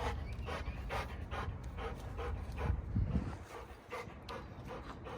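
A large pit bull-type dog panting hard and fast, about three breaths a second.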